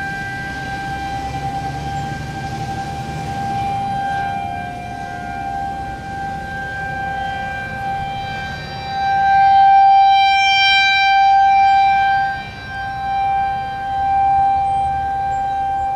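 Federal Signal 2001-SRNB rotating outdoor warning siren sounding a steady tone during its weekly test, heard from about 0.4 miles away. The pitch holds level while the sound swells and fades as the rotating horn sweeps around, loudest about nine to twelve seconds in.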